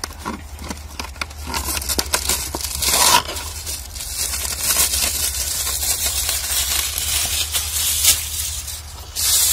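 Heavy-duty aluminium foil rustling and crinkling as it is pulled off the roll and spread out, with louder crackles about three seconds in and near the end.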